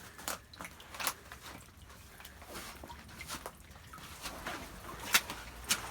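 Small creek trickling, with irregular sharp plinks of dripping water, the loudest about five seconds in.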